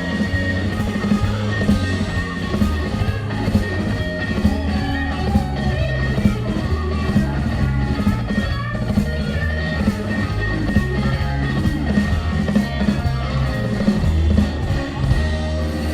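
Blues band playing, led by guitar over a steady beat.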